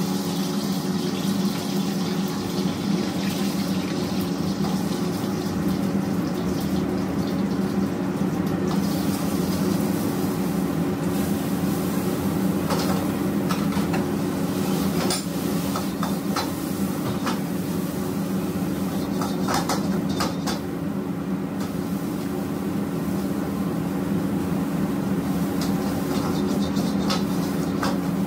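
Metal wok ladle scraping and clanking against a steel wok during stir-frying, in short irregular strokes that come more often in the second half. They sit over the steady drone of high-flame gas wok burners.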